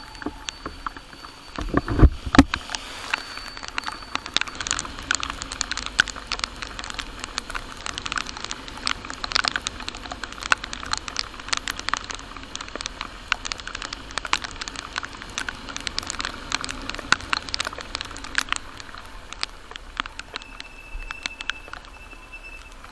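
Raindrops pattering on a motorcycle-mounted camera while riding in heavy rain: a dense, irregular stream of sharp ticks, with the motorcycle and wet-road noise faintly underneath. One loud low thump about two seconds in.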